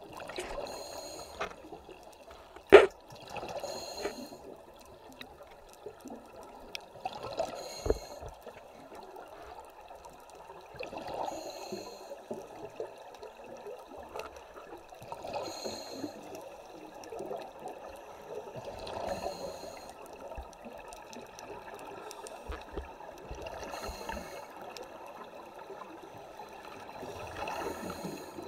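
Scuba diver breathing through a regulator, heard underwater: a burst of exhaled bubbles about every four seconds. A sharp knock sounds about three seconds in.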